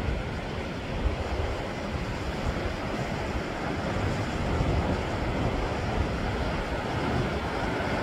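Sea waves washing steadily over a rocky shore, with wind buffeting the microphone.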